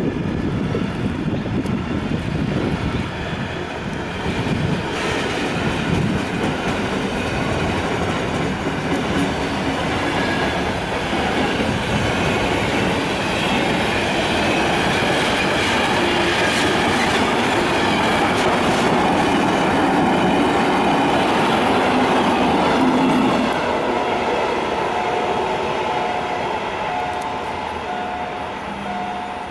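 A loaded container freight train passing close by: the steady rumble and clatter of wagon wheels on the track goes on unbroken as the cars roll past. A regular electronic beeping starts near the end.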